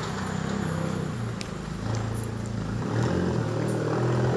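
A motor vehicle engine running close by amid street traffic, a low steady hum that grows louder about three seconds in.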